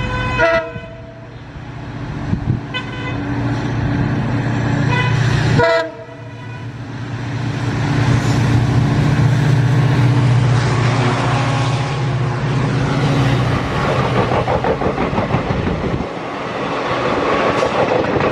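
Diesel locomotive horn sounding a few short blasts in the first six seconds as a WDP-4D-hauled train approaches. After a sudden change, a diesel locomotive passes close, with a low engine drone under a rising rush of wheels and air. Near the end comes a regular clickety-clack of passenger coaches running over rail joints.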